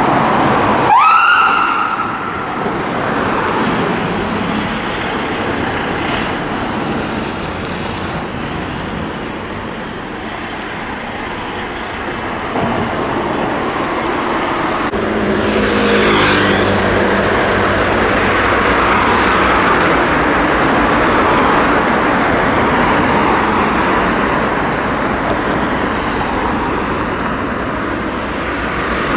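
Fire engine under blue lights: one short rising siren sweep about a second in, then the engine running amid road traffic noise, its note climbing as it pulls away around the middle.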